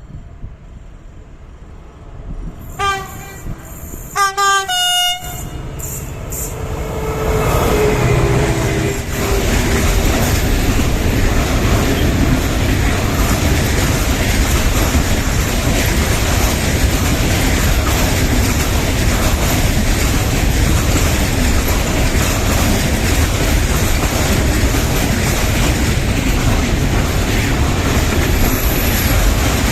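Train horn sounding a greeting: a short blast, then a longer one about a second later. The train then passes close by, its noise building over a few seconds into a loud, steady rumble and clatter of wheels on the rails.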